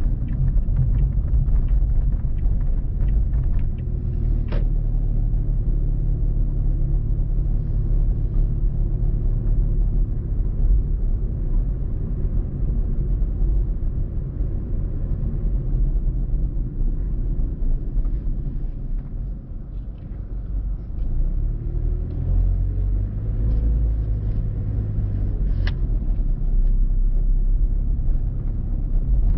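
Car being driven: a steady low rumble of engine and road noise that drops for a moment about twenty seconds in and then picks up again. A couple of sharp clicks can be heard.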